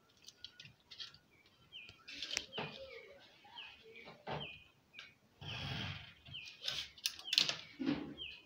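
HB pencil scratching on drawing paper in repeated strokes along a set square's edge as a cube's outline is thickened, the strokes loudest in the second half. Behind it a bird chirps over and over, a short high call about once a second.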